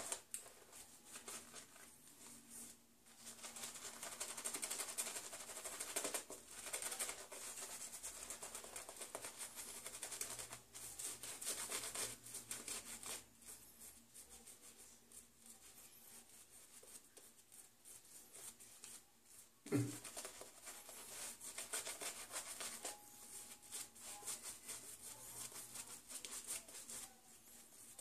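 Bristle shaving brush scrubbing and swirling shaving cream on a wet face to build a lather, a faint wet, bristly rubbing in uneven stretches of strokes. The lather is coming out fairly runny. One brief, louder low sound cuts in about twenty seconds in.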